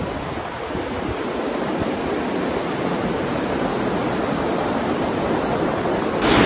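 Fast-flowing floodwater rushing down a street, a steady noise of moving water that slowly grows louder, with a sudden louder, brighter rush just before the end.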